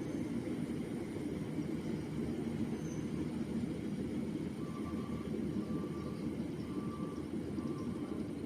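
Rice combine harvester running steadily as it works the paddy, a continuous low engine rumble.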